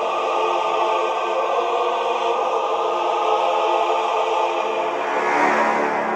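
Choral background music with long held notes, swelling briefly near the end.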